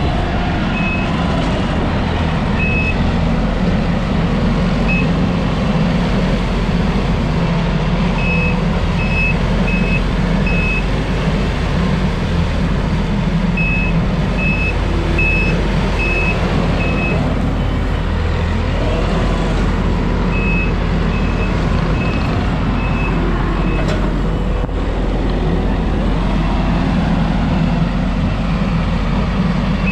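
Takeuchi TL12V2 compact track loader's diesel engine running steadily under work, with its backup alarm giving high beeps in several separate runs as it reverses.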